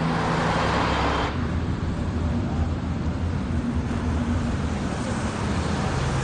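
Road traffic and car engine noise: a louder rush of a vehicle going by for about the first second, which cuts off suddenly, then a steady low engine rumble.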